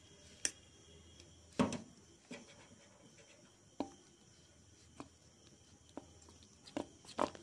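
Metal spoon stirring thick gram-flour batter in a steel bowl, with scattered sharp clinks and scrapes as the spoon knocks the side of the bowl, the loudest about one and a half seconds in.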